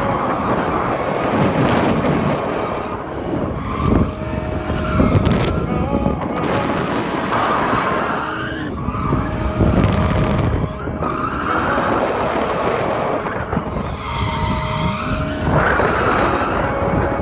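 Drift car engine revving hard with tires screeching, the sound swelling and falling repeatedly as the car slides.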